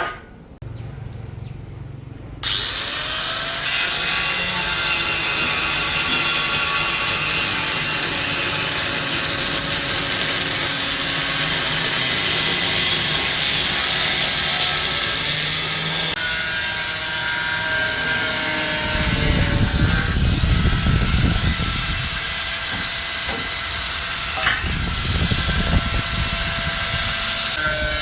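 A power tool starts suddenly about two and a half seconds in and runs loudly against a workpiece, a harsh high-pitched noise, joined by a low rumble near the end.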